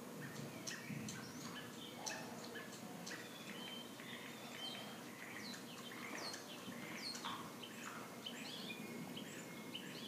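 A number of small birds chirping and twittering: many short, quick calls, several of them dropping in pitch, overlapping one another.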